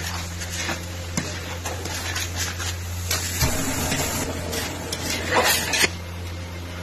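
Metal spatula and knife scraping and clattering against a large metal kadhai while grated carrot and sugar are stirred for gajar ka halwa, in a string of irregular scrapes and knocks that grow loudest and stop about six seconds in. A steady low hum runs underneath.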